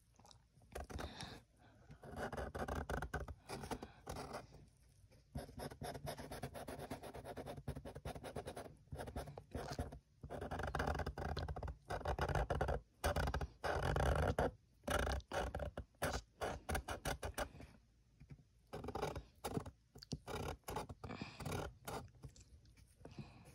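Black marker drawing on a printed paper sheet: scratchy strokes in short runs, broken by brief pauses.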